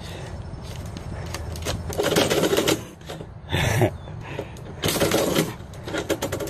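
Metal mail-slot flap clattering and paper envelopes rustling as mail is pushed through the slot and shoved back out, in three short bursts.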